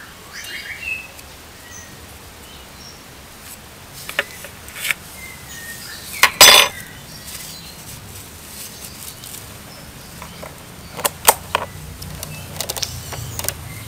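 Scattered clinks and knocks of a metal spoon and kitchen utensils against bowls, the loudest a little past the middle and several more close together near the end.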